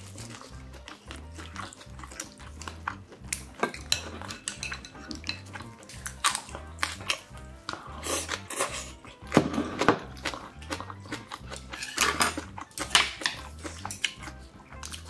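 Close-up eating sounds: metal chopsticks and a spoon clicking and tapping against ceramic bowls and a clay pot, with bites and chewing, over soft background music.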